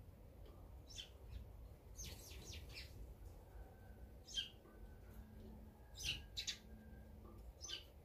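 Small songbirds chirping in short, high calls: a quick run of several chirps about two seconds in, a louder single chirp near the middle, two more close together around six seconds, and one near the end.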